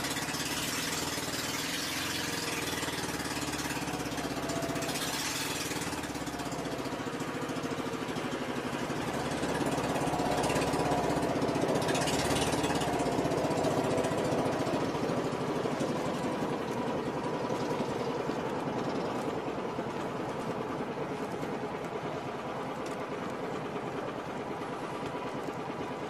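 A boat's engine running steadily, growing somewhat louder about ten seconds in and easing off again later.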